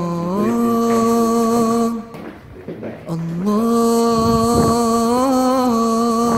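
A man's voice singing an Arabic devotional song, drawing out long held notes with no words sung, with a short break about two seconds in before the next long note.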